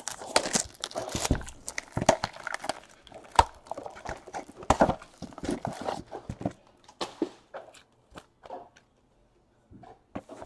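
A cardboard trading-card hobby box handled on a table: a run of rustling with light knocks and taps, thinning out to a few scattered taps after about seven seconds.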